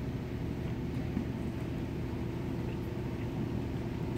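Steady hum of a large drum fan running: a low drone with a faint constant tone above it.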